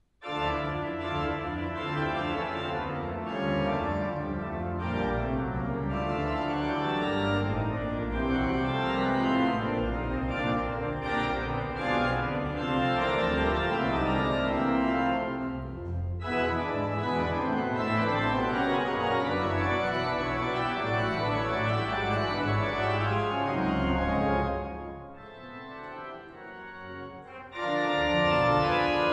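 C. B. Fisk mechanical-action pipe organ playing loud, full sustained chords that come in suddenly after a moment of silence. About 25 seconds in it drops to a softer, thinner passage, then the full sound returns near the end.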